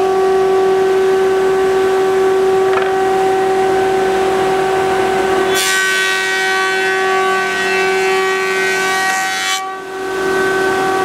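Thickness planer and dust collector running with a steady whine. About five and a half seconds in, boards feed through and the cutterhead cuts the wood for about four seconds, a louder, hissing planing noise that cuts off abruptly as the cut ends, before the steady whine carries on.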